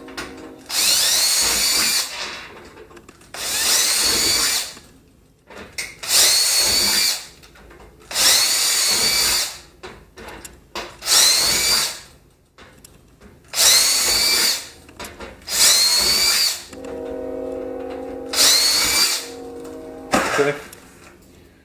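Cordless drill with a 9/64 inch bit reaming out pre-drilled holes in a sheet-metal case panel, run in about eight short bursts of a second or so, one per hole, the motor pitch rising as each burst starts.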